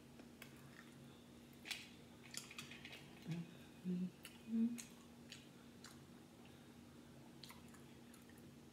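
Eating leftover seafood boil: chewing, with scattered small wet clicks as pieces are picked from a glass bowl and shell is peeled by hand. A few short, louder low sounds bunch up in the middle, over a faint steady hum.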